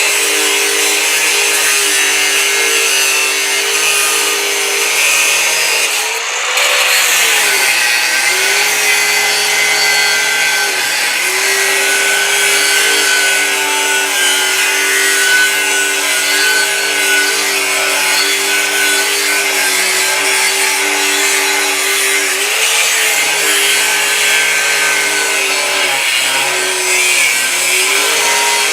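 LEPSE MShU-0.8-125 angle grinder, an 800 W, 125 mm disc grinder, running under load with a steady high motor whine and dense grinding hiss. Its pitch dips and recovers several times as the load changes.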